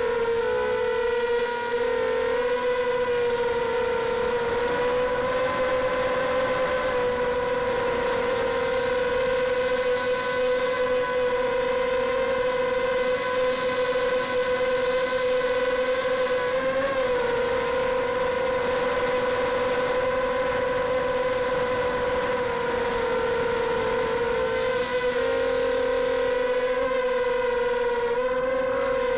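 Multirotor FPV drone's electric motors and propellers running in flight, heard from the onboard camera: a steady high-pitched whine that dips and rises slightly in pitch a few times as the throttle changes.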